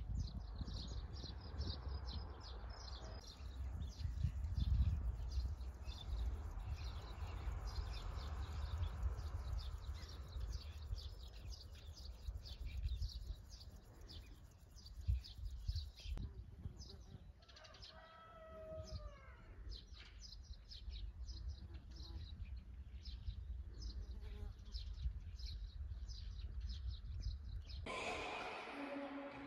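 Small birds chirping in many short calls over a steady low rumble. About two-thirds of the way through comes a longer drawn-out call that falls in pitch.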